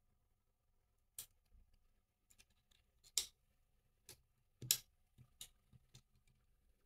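Faint, scattered small clicks and taps of a tool working the tiny plastic latch of a ribbon-cable connector inside a Joy-Con, the two loudest about three seconds in and near five seconds.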